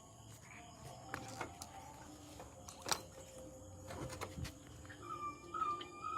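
Faint unexplained noise from a 2025 Bajaj Pulsar NS400Z motorcycle: a weak whine with scattered sharp clicks, the strange sound the owner can't identify. About five seconds in, a wavering high whistle-like tone comes in.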